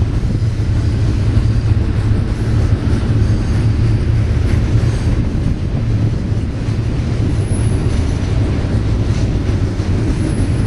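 Union Pacific double-stack container cars rolling steadily past: a continuous low rumble of steel wheels on rail, with faint high squeals now and then.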